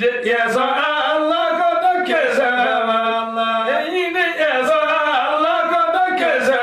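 Two men chanting a qasida, an Islamic devotional poem, together and unaccompanied, in long held notes that slowly rise and fall in pitch.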